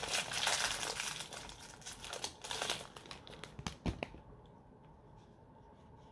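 Plastic wrapper of a Yu-Gi-Oh booster pack crinkling as the pack is opened and the cards pulled out. The crinkling dies away after about four seconds with a sharp click, leaving faint handling.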